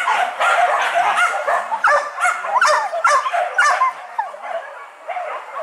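Several hunting dogs barking and yelping, many short calls overlapping several times a second, easing off briefly about four seconds in before picking up again.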